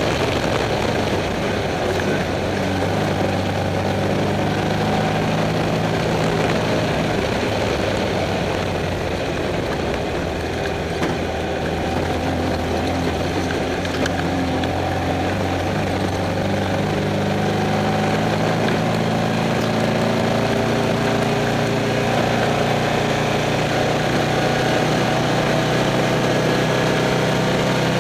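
Off-road race car's engine running as the car drives, heard from inside the cockpit; the engine note holds steady for long stretches and shifts in pitch a few times.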